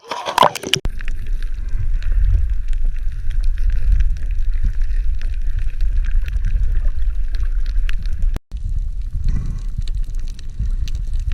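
Underwater sound at a coral reef heard through a camera: a splashy noisy burst at the start as the camera goes under, then a steady low rumble of moving water with scattered crackling clicks. It cuts out briefly about eight seconds in.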